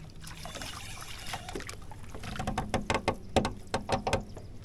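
A hooked crappie being lifted out of the water and swung toward a boat on a short rod: a quick run of clicks and knocks in the second half, over a low steady hum.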